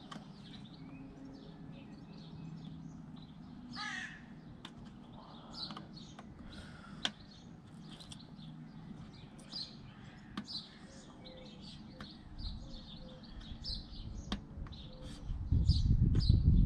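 Birds calling and chirping throughout, with a louder call about four seconds in and a few light clicks. Near the end a loud low rumbling noise starts and lasts under two seconds.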